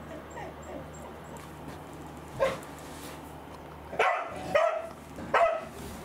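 A dog barking in short, high yips: one about two and a half seconds in, then three close together in the last two seconds.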